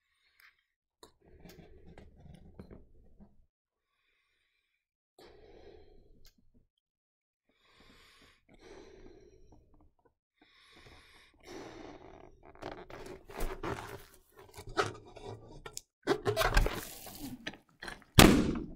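Red latex balloon being blown up by mouth: a series of long puffs of breath into it with short pauses for breath between, the rubber squeaking and rustling more loudly as it grows large and is handled. A single sharp, loud bang near the end.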